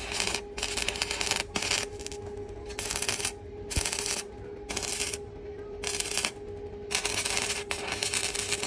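Stick (arc) welding on galvanized steel: the electrode's arc crackling in about a dozen short bursts with brief breaks between, as the arc is struck and broken again in a stitch weld, over a faint steady hum.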